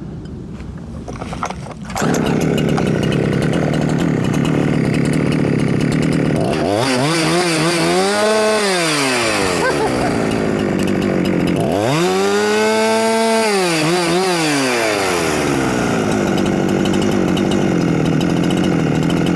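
Huyosen 6524 two-stroke chainsaw, a clone of the Husqvarna 365, running: about two seconds in the throttle opens to a loud, steady high-speed run, and twice the engine note rises and falls back over a couple of seconds.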